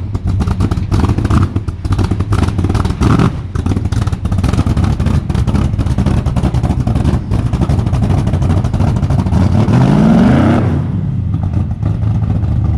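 Freshly started truck engine running loud through a short open exhaust with no tips, idling with an uneven firing beat. It is blipped briefly about three seconds in and revved higher near ten seconds before dropping back to idle.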